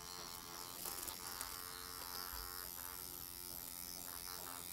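Motorized microneedling pen buzzing steadily and faintly as it is worked over the skin under the jawline.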